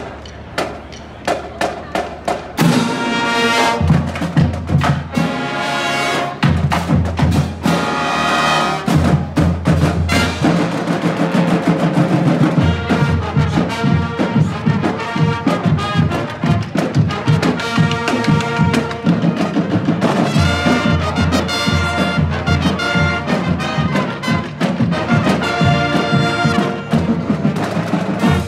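Brass band playing with percussion: a few sharp drum hits, then trumpets, trombones and a low brass bass line come in about two and a half seconds in and play on.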